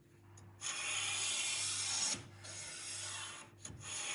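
Stanley No. 4 hand plane with a freshly sharpened blade shaving walnut: three long, even hissing strokes, each about one and a half seconds, the last starting near the end, as the blade takes very thin shavings.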